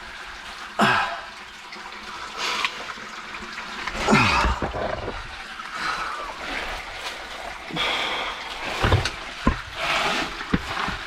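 A caver crawling through a tight, wet rock passage, making irregular splashes and sloshes of water and scrapes of body and clothing on rock. The loudest bout of splashing and shuffling comes about four seconds in.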